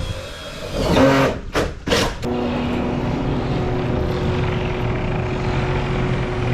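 A few knocks and clatter in the first two seconds, then a crane's engine running steadily at a constant pitch.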